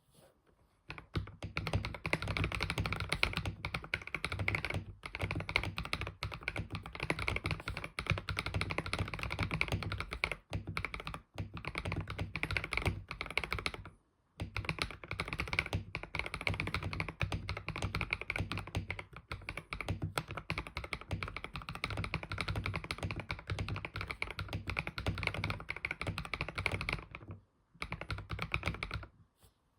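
Fast, continuous typing on a Sharkoon Skiller SGK50 S3 mechanical keyboard with Gateron Yellow linear switches: a dense stream of key strokes. It breaks off briefly a few times, pauses about halfway, and ends with one last short burst.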